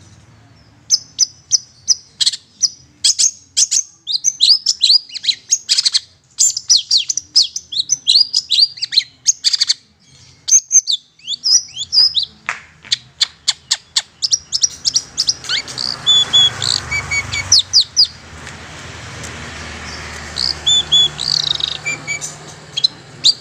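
Long-tailed shrike (cendet) giving rapid, harsh chattering calls: quick strings of sharp down-slurred notes, several a second, used as a lure call to draw wild shrikes. A passing motorbike's engine swells under the calls in the second half.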